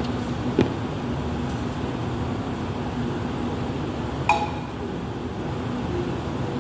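Two sharp metal-and-glass clinks as a dial pressure gauge and screwdriver are handled during gauge adjustment, the second about four seconds in, louder, with a brief ring. Under them runs a steady fan-like hum.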